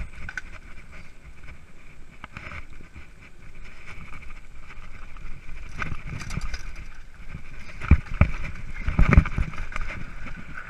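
Mountain bike rattling and clattering as it rolls over a rough dirt trail, with scattered clicks and a few louder knocks near the end.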